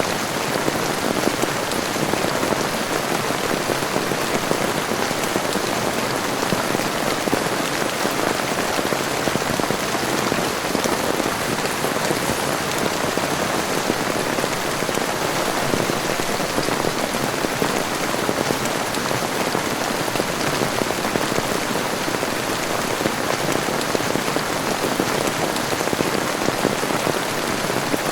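Heavy rain falling steadily, an even hiss that holds at one level, with no thunder claps.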